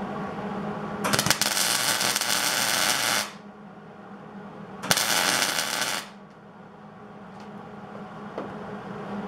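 MIG welder striking two welds, the arc crackling for about two seconds, then, after a short pause, for about a second more. The welds build up metal to fill a bolt hole in a Harley triple clamp so it can be re-drilled.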